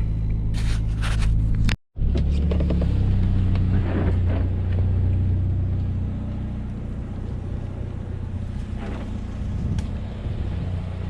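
GMC Sonoma pickup driving along, a steady low engine and road drone. The sound drops out completely for a moment about two seconds in, then runs on a little quieter.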